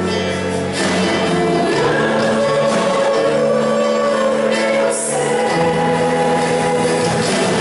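Live Christian worship music: a praise band with acoustic guitar, electric bass and keyboard accompanying voices singing together.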